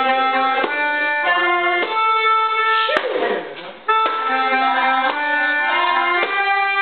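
Two keyboard harmonicas (melodicas) played together through blow tubes, a simple melody in held, reedy notes, with a brief break about three seconds in.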